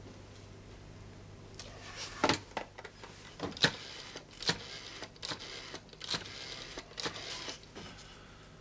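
Rotary telephone dial being wound round and whirring back several times, one spin about every second, as a number is dialled.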